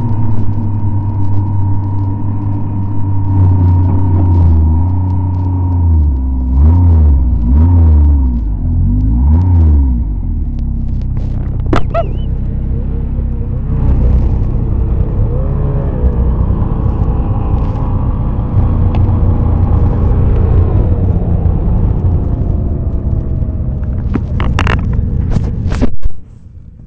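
Snowmobile engine running while riding slowly over snow, the engine speed rising and falling several times, then settling to a steady run. The sound cuts off suddenly just before the end.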